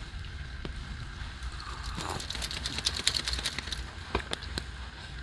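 Small campfire of split wood crackling, with a dense run of pops in the middle and a few single pops later, over a low steady rumble.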